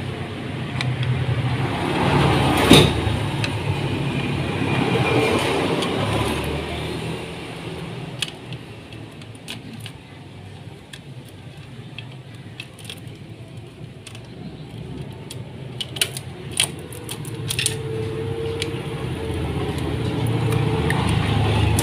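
Small metallic clicks and clinks as a Yamaha Vixion's cam chain and engine parts are handled and worked off the crankshaft sprocket by hand. Under them is a steady low vehicle hum that fades after about six seconds. The chain is coming out because its tensioner has failed and the chain has stretched.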